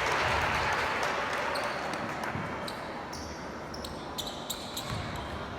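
Gym crowd noise dying away, then a basketball bouncing on a hardwood court with sneakers squeaking in short high chirps from about halfway through.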